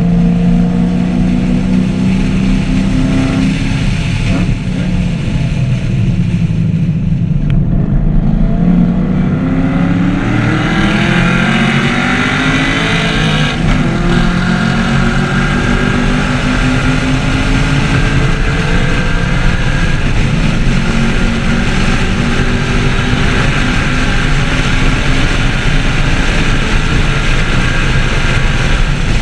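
Chevrolet Camaro SS 1LE's V8 on track: its revs fall over the first several seconds, then climb hard about eight seconds in and hold high under full acceleration.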